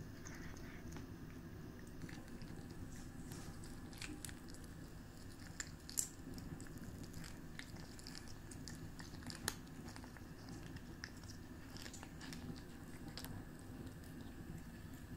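A cat chewing a fish head, with scattered sharp crunches, the loudest two near the middle, over a steady low hum.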